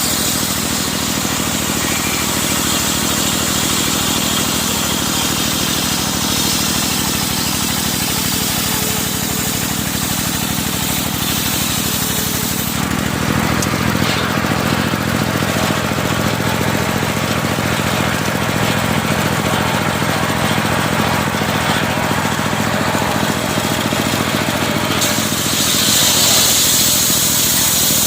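Engine-driven circular sawmill (serkel) running steadily while sawing medang timber into thick planks. Its sound changes clearly about halfway through and again near the end.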